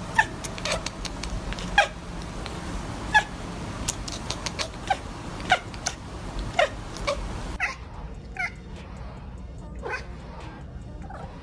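A cat making short, repeated meow-like calls, roughly one a second, over a low background hiss; the hiss drops abruptly about two-thirds of the way in.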